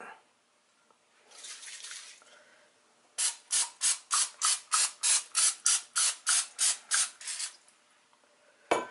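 Aerosol cooking spray being sprayed into a glass baking dish: one short hiss, then a rapid run of about seventeen short spurts, about four a second.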